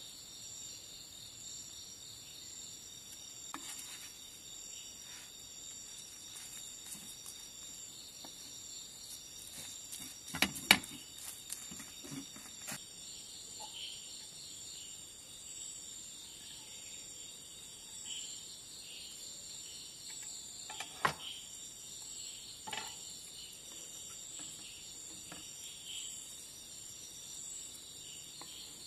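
Steady chorus of crickets, with a few clinks of metal cookware over it, the loudest a sharp clank about a third of the way in and two lighter knocks later on.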